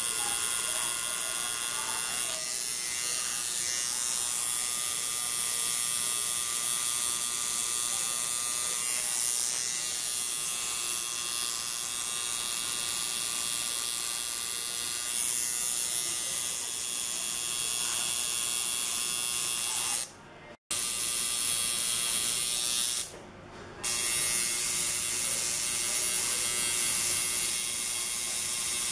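Cartridge tattoo machine buzzing steadily as its needle works ink into the skin, dropping away briefly twice about two-thirds of the way through.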